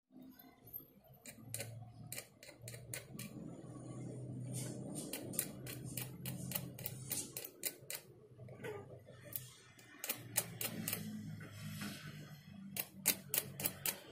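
Sharp irregular snapping of sparks as a bare copper wire end is tapped against a lead-acid battery terminal, coming faster near the end, over a low transformer hum that swells while current flows.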